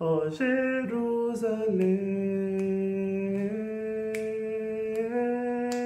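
A man's voice singing a hymn melody. A few short notes step downward, then come long held notes that step up twice.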